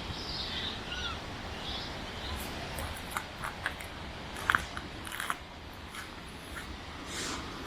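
A few brief, high, gliding animal calls, then scattered clicks and taps, one sharp click about four and a half seconds in, over a steady low hum.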